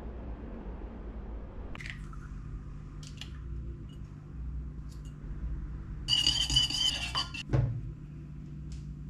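Fork and ceramic plate clinking and scraping while egg and milk are mixed and a slice of bread is dipped. There are a few light clicks, then a longer, louder scraping stretch with a thump just after it, over a steady low hum.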